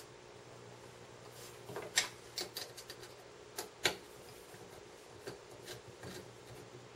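Light metal clicks and clinks as a jaw is fitted to a four-jaw woodturning chuck and its screw is worked with a T-handle hex key. They come in small clusters, the sharpest about two seconds in.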